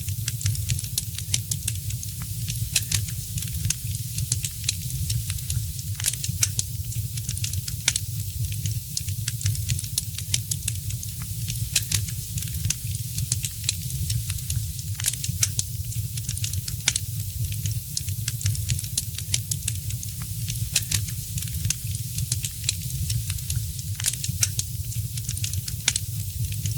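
Fire in a fireplace crackling: frequent sharp pops and snaps, irregularly spaced, over a steady low rumble.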